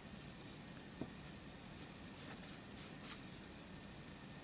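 Faint rubbing and scuffing of fingers handling a plastic tub of Vaseline and smearing the jelly onto a motherboard's memory slots: a soft tap about a second in, then several short scrapes between two and three seconds in.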